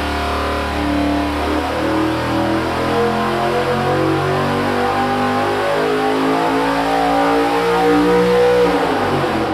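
Cammed GM 4.8 L LS V8 on an engine dyno at full throttle during a power pull, its pitch rising as it sweeps up from about 4,400 to about 7,000 rpm. Near the end the throttle closes and the pitch falls away.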